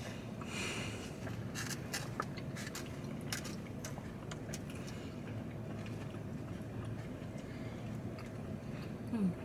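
Close-up chewing of a chili cheese hot dog, with scattered wet mouth clicks, over a steady low hum in the car cabin.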